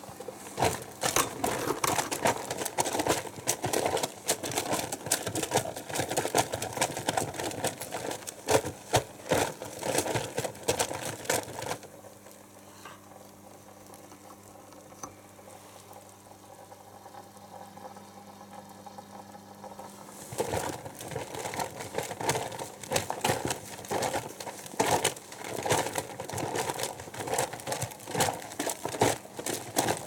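Samsung Ecobubble front-loading washing machine's drum tumbling wet towels in soapy water with the door open, the load sloshing and slapping in quick irregular splashes. About twelve seconds in the tumbling stops for some eight seconds, leaving a low steady hum, then the drum turns and splashes again.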